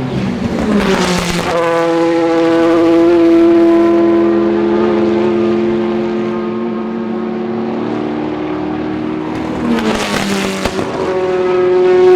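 Ferrari F430 GT2 race car's flat-plane V8 running at high, steady revs, with a short crackling burst about a second in and another near the end, each where the engine's pitch changes.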